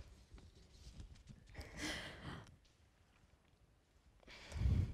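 Two faint breaths into a handheld microphone, about two seconds in and again near the end, over a quiet room; the second has a low thud of breath on the mic.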